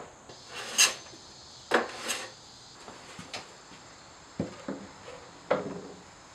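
Plywood panels being handled and fitted together: a handful of short wooden knocks and scrapes as the pieces are set against each other, the loudest about a second in and again near two seconds.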